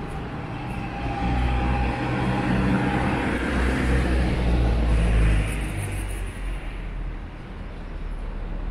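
A motor vehicle driving past on the street, its engine and tyre noise swelling to a peak about five seconds in and then fading away.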